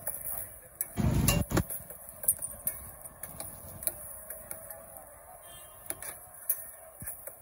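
Steel spatula and scraper clinking and scraping on a large flat griddle as parathas are pressed and turned: a scatter of sharp metallic ticks. A loud low thump comes about a second in.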